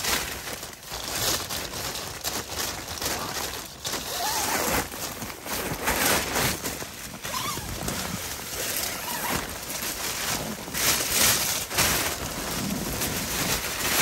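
Tent fabric rustling and snow crunching in irregular bursts as someone crawls and kneels inside a dome tent pitched on snow, handling the door and its mesh panel.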